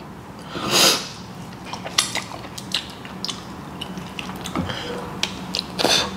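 Close-up eating sounds of a man working on saucy braised oxtail with gloved fingers: scattered small wet clicks and smacks. There is a sharp hissing sniff about a second in and another near the end, from the spicy food making him sniffle.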